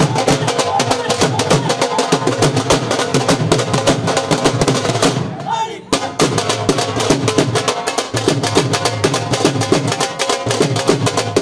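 Several dhol barrel drums played with sticks in a fast, dense beat, with a brief drop in loudness about five and a half seconds in.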